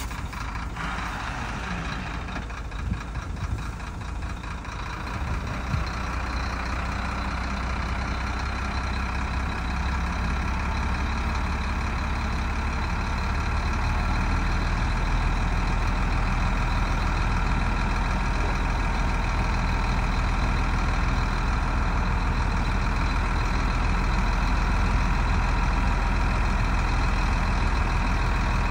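Heavy diesel engine of earthmoving machinery running, growing steadily louder over the first half and then holding level, with a few brief knocks in the first few seconds.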